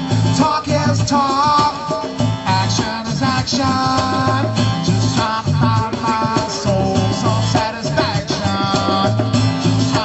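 A live band plays an upbeat song with guitar and a steady bass line under a melody that wavers and bends in pitch.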